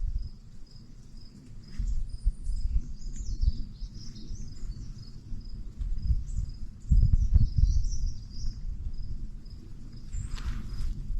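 Small birds chirping over an uneven low rumble with thumps, and a short rustle near the end.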